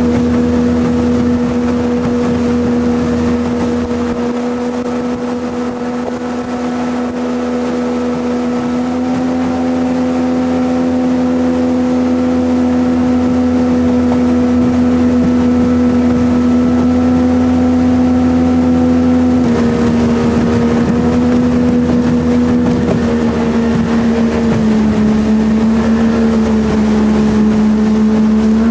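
Jet boat's engine running steadily under way, a loud, even drone. Its pitch drops a little about twenty seconds in and again a few seconds later as the throttle eases.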